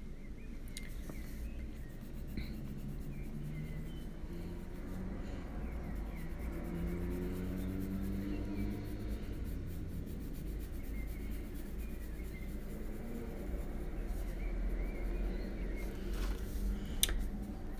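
Faber-Castell Polychromos coloured pencil scratching faintly on the paper while shading, over a low steady hum.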